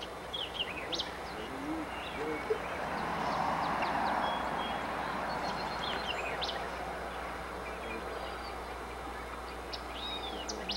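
Small birds chirping, a string of short, high chirps and calls, over a steady outdoor rush that swells for a couple of seconds near the middle.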